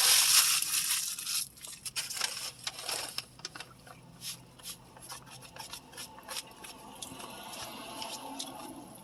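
Close-up eating sounds: a loud burst of rustling over the first second and a half, then irregular chewing clicks and mouth smacks.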